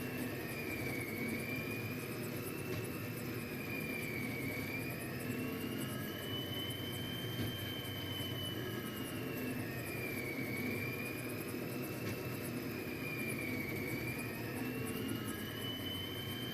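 Stepper motors of a Rostock-style delta 3D printer whining as the carriages move on a dry run, the pitch dipping and rising smoothly about every three seconds, over a steady whirring hum.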